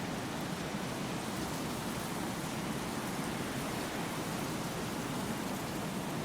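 Steady, even rushing noise with no distinct events, unchanging throughout.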